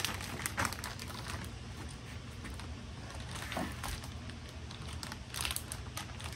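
Scattered clicks, knocks and light rustling from hands working at an electric smoker while wood chips are being readied for its chip loader, over a steady low hum.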